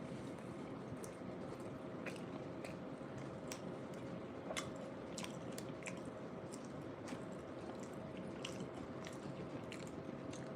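Close-miked chewing of a soft bean burrito, with irregular wet mouth clicks.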